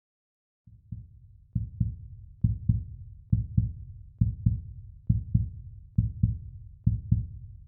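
Heartbeat sound, a steady lub-dub double thump about 68 times a minute. It starts after a moment of silence.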